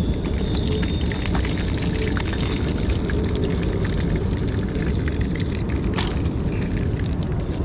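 Hot oil crackling and spitting in a frying pan around a whole white perch, over a steady low rumble of wind on the microphone.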